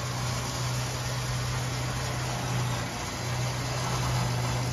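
Jeep Gladiator Rubicon running at idle while its electric front winch reels in the line and pulls the truck forward, a steady low hum throughout.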